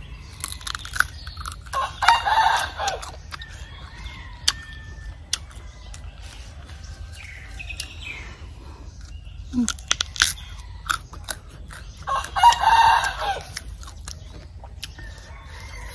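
A rooster crowing twice, about ten seconds apart, over crisp crunching and chewing of an unripe green mango.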